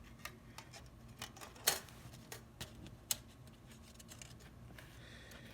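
Small, sharp clicks and taps of a phone's internal panel and tools being handled and pressed into place on an iPhone 7 Plus during reassembly. The clicks are irregular and come mostly in the first half, the loudest about a second and a half in.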